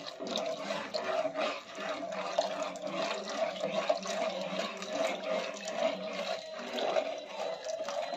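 Custard slurry pouring into hot milk in a steel pan while a steel spoon stirs, sloshing the liquid and scraping and clicking against the pan in a steady run of small knocks.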